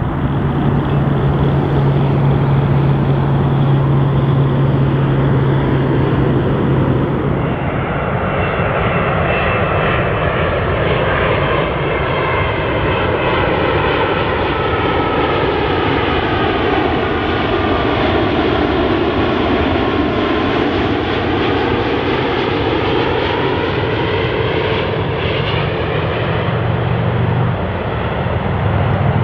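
Boeing 787-9 jet engines, Rolls-Royce Trent 1000s, on final approach, flying past. A steady jet rush carries whining tones that slide down in pitch and back up as the aircraft passes. A low steady hum lies under the first seven seconds and comes back near the end.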